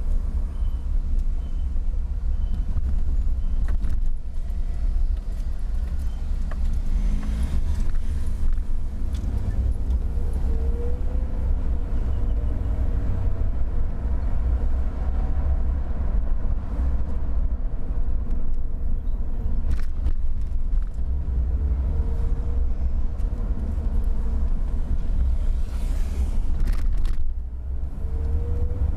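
Car driving, heard from inside the cabin: a steady low rumble of engine and tyres on the road. The engine pitch rises a few times as the car speeds up, with the odd knock from bumps.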